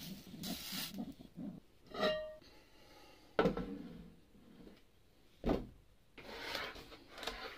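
Metal kitchen tongs scraping and clattering as they turn charred red pepper pieces in a frying pan, with a short ringing clink about two seconds in. Then a bamboo chopping board is set down with a sharp knock, and a second, lighter knock follows as an eggplant is laid on the board.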